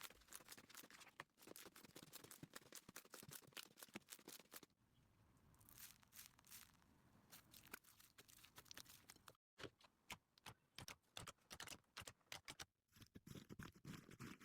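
Slime being squeezed and worked by hand, giving dense, fast crackling and popping clicks. Two brief full-silence gaps break it, about nine and a half and thirteen seconds in.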